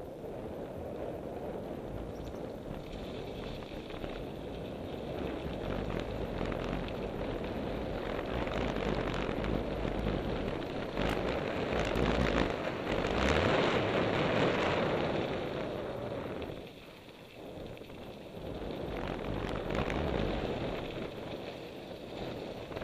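Wind rushing over a helmet camera's microphone with the rumble and rattle of a mountain bike riding fast down a dirt trail. It is loudest in the middle and drops off briefly about three quarters of the way through.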